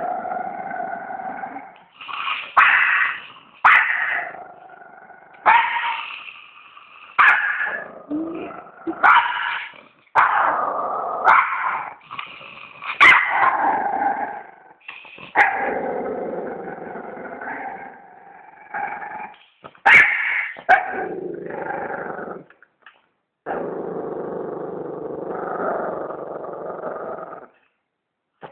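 Small Chihuahua-type dog barking and yapping in short, sharp bursts about once a second. About halfway through it turns to long drawn-out growls with a short break.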